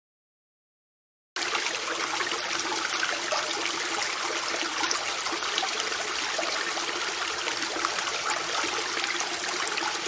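Water running from a drinking fountain in a steady stream. It starts after about a second and a half of silence.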